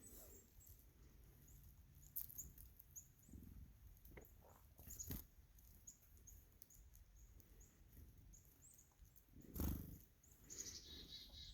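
Faint, thin high chirps of small songbirds, chickadees and tufted titmice, repeating about once a second, with a quicker run of calls near the end. A few soft knocks and rustles come in between, the loudest shortly before the end.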